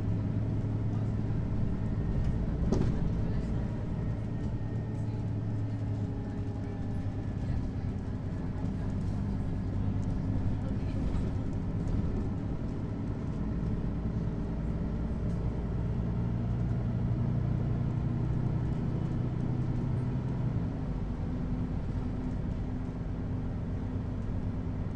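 Mercedes-Benz Citaro articulated city bus's diesel engine and driveline, heard from inside while driving. The engine hum swells and eases as the bus speeds up and slows, and there is one sharp click about three seconds in.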